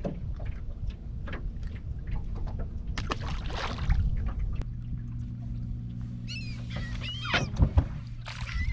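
Open-water sounds around a small fishing boat: low water and wind noise with a brief rushing swell, then a steady low hum from about halfway. Diving seabirds call over the water in short squawking cries from about two-thirds of the way in.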